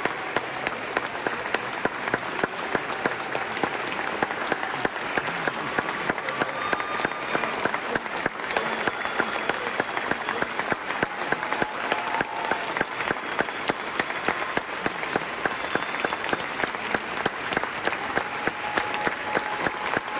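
Large concert audience applauding steadily, with one pair of hands clapping close by at about three claps a second.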